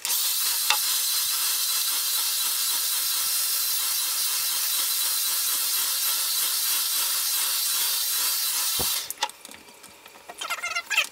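Handheld hair dryer blowing on high, a steady rush of air, cutting off suddenly about nine seconds in just after a low thump.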